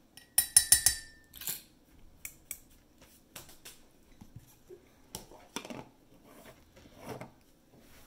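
A measuring spoon rapping several times in quick succession against a ceramic ramekin, which rings briefly. This is followed by scattered lighter knocks and clatter as kitchen items are handled and set down.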